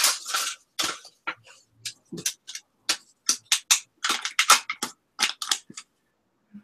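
Paper sticky notes being handled and rustled in the hands: a quick, irregular string of short crackles.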